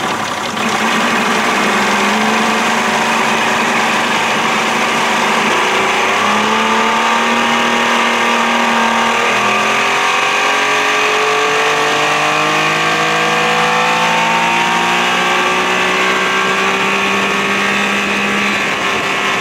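1992 Johnson 60 hp two-stroke outboard running under throttle as the boat picks up speed: its pitch climbs from about six seconds in, dips briefly near the middle, then keeps rising slowly, over a steady rush of water.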